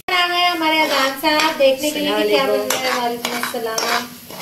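A child's voice talking.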